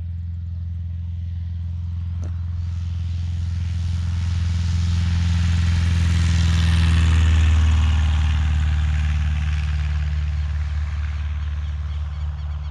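Single-engine high-wing light aircraft's piston engine and propeller at full power on the takeoff run. It grows louder to a peak as it passes close about seven seconds in, drops in pitch as it goes by, then fades as the plane lifts off and climbs away.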